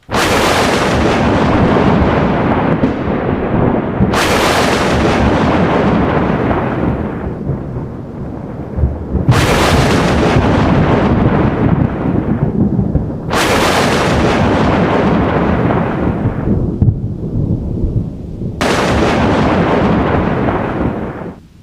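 Thunder: five sudden cracks about four to five seconds apart, each rolling on in a long rumble that dies away from the top down, the last one cut off abruptly near the end.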